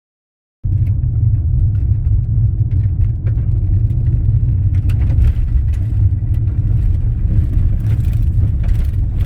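Loud, steady low rumble that cuts in abruptly just after the start, with faint scattered clicks and crackles over it.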